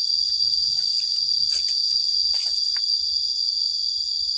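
Loud, steady high-pitched drone of forest insects, unbroken throughout, with faint footsteps and rustling on the leafy path beneath it.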